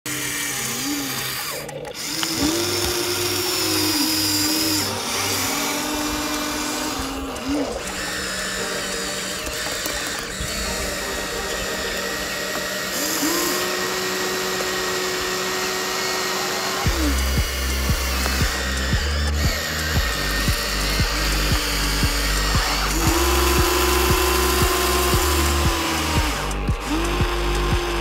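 Electric motors of a Huina remote-control toy excavator whining as the arm moves, in several runs that each rise in pitch, hold and fall away. Background music plays throughout, with a steady beat coming in a little past halfway.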